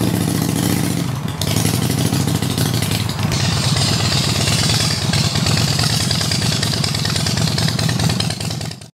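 Custom chopper motorcycle engine running as the bike rides by. The sound changes abruptly about a second in and again about three seconds in, and a hiss joins it from then on. It cuts off suddenly near the end.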